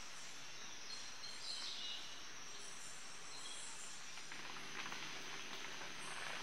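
Tropical rainforest ambience: a steady high insect drone, with a few faint short calls about a second and a half in.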